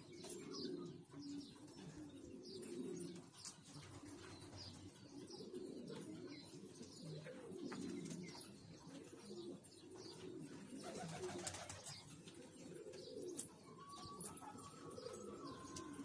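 Domestic pigeons cooing: a continuous low murmur of overlapping coos, with faint high chirps over it.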